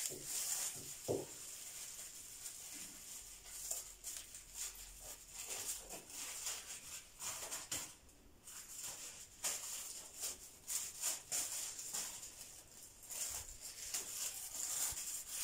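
Thin plastic food bags rustling and crinkling in irregular bursts as they are handled and filled with cut orange segments, with a brief quieter stretch about halfway through.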